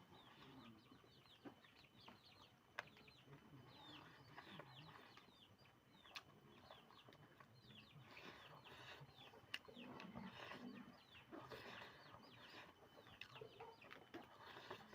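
Faint chickens chirping: many short, high, downward-sliding peeps, with a few sharp faint clicks among them.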